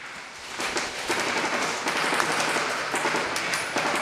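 Airsoft fire across an indoor arena: a dense, steady patter of many small ticks sets in about half a second in, like BBs striking barriers and other guns going off around the field.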